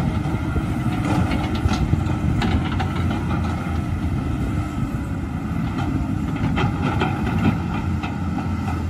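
Caterpillar 320C hydraulic excavators' diesel engines running steadily under digging load. Scattered short knocks and scrapes come from the buckets working the soil and debris, most of them about one to three seconds in and again around six to seven seconds.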